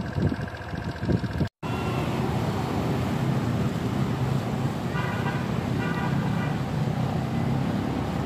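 Vehicle ride noise for about a second and a half, cut off abruptly. Then steady outdoor traffic and crowd noise, with short horn toots about five and six seconds in.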